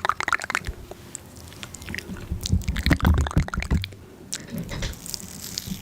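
Close-miked eating: wet chewing and biting, with scattered sharp clicks. It is busiest a little past halfway through.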